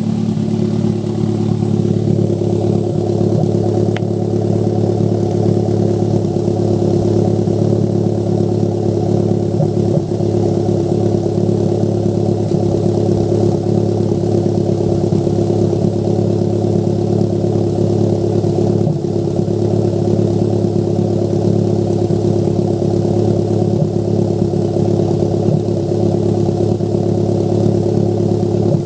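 Toyota MR2 Turbo's turbocharged four-cylinder engine running steadily, with its exhaust popping now and then: a sign of a misfire.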